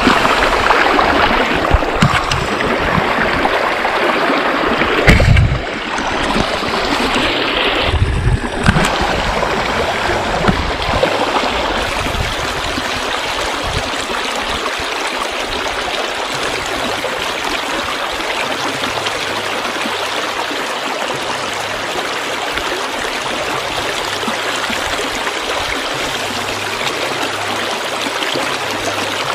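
Steady rush of river water flowing over rocks. In the first part there are several low thumps and knocks, after which the water noise runs on evenly and a little quieter.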